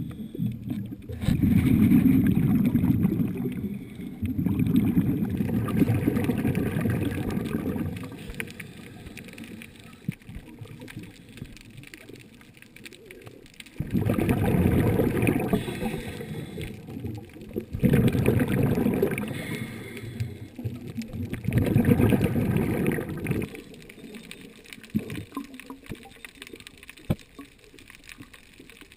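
A scuba diver's exhaled bubbles rushing from the regulator past an underwater camera: bubbling rumble in bursts a few seconds long, five or so times, with quieter pauses between breaths.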